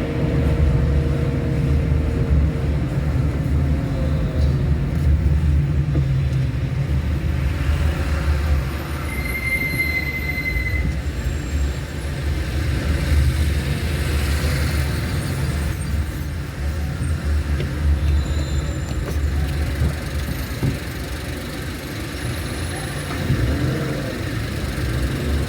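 Steady low rumble and road noise of a vehicle on the move, with a brief high squeal about ten seconds in.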